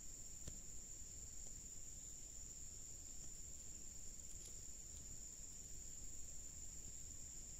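Steady, unbroken high-pitched insect chorus, with a low rumble beneath and a faint click about half a second in.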